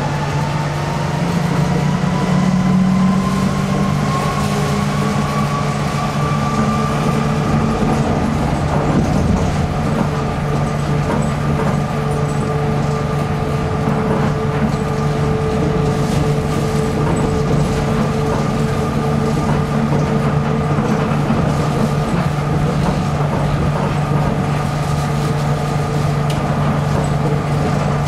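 Nippori-Toneri Liner 300-series rubber-tyred automated guideway train heard from inside the car while running along the guideway. A steady low hum and tyre rumble sit under a thin electric motor whine that climbs a little in pitch over the first few seconds, then holds steady at cruising speed.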